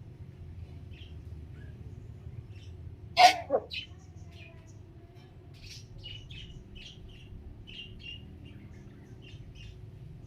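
Pet parrots chirping in short, scattered notes, with one loud call about three seconds in and a shorter one right after it.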